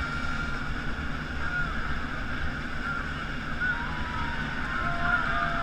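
A large outdoor crowd of spectators murmuring and chattering, over a steady low rumble. A few thin, drawn-out high tones sound over the murmur in the second half.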